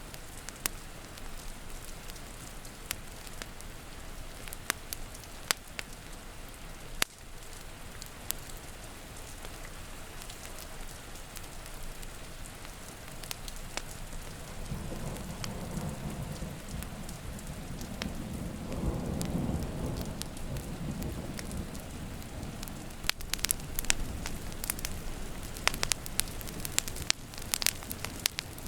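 Steady rain with a low rumble of thunder swelling through the middle and fading, over the sharp pops of a crackling wood fire that come more often near the end.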